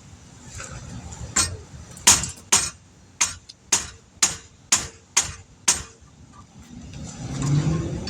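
Hammer blows on a rusted, seized brake caliper pin, about ten sharp metallic strikes roughly two a second, stopping about six seconds in. The pin is frozen and only moves down a little, without coming out.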